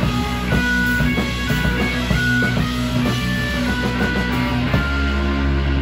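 Live rock band playing: electric guitars, bass guitar and drums. About three-quarters of the way through, the drum hits thin out and the band holds a sustained chord.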